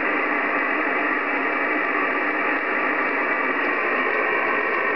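Steady hiss of static from a Yaesu FT-747GX HF transceiver's speaker, receiving on the 40-metre band with no station coming through: the RF noise that ferrite bars are being tried against.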